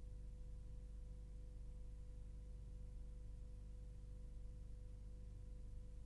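Near silence: a faint, steady low hum with a thin steady tone above it, unchanging throughout.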